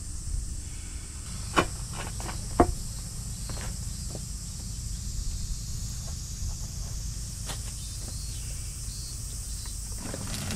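Outdoor summer ambience: a steady high-pitched insect drone over a low, uneven rumble, with two sharp clicks about one and a half and two and a half seconds in.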